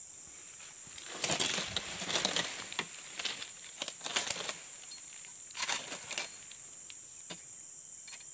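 Dodos chisel blade on a long pole jabbed again and again into an oil palm's frond bases and bunch stalk, making rough scraping and rustling strokes in three spells over the first six seconds or so.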